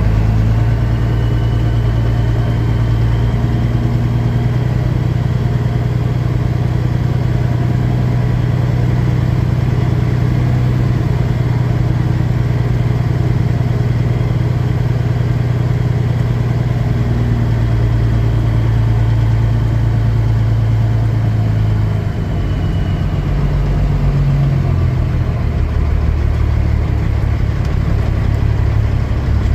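Semi truck's diesel engine running at low speed while the truck backs up to a loading dock, a steady low hum whose pitch shifts about two-thirds of the way through.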